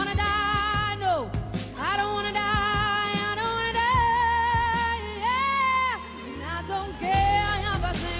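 Pop song: a woman sings long, held notes with a wavering vibrato over the backing track, several sustained notes in a row.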